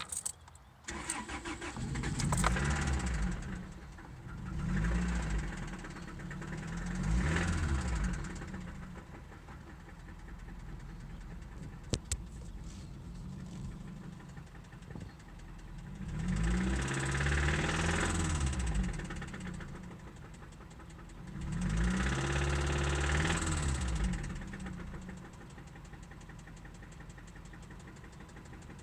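2003 Toyota Celica GT's four-cylinder engine started, then idling and revved five times, its pitch rising and falling with each blip. The owner says the engine has a knock.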